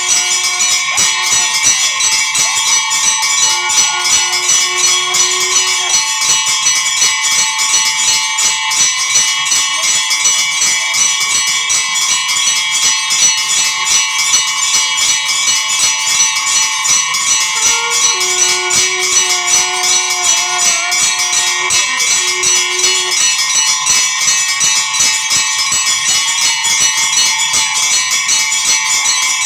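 Temple bells rung rapidly and without a break, a dense, even clanging with a bright ringing that carries throughout.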